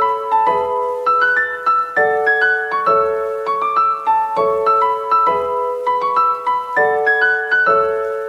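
Background music: a piano melody with notes struck evenly, about two a second, over repeating lower notes.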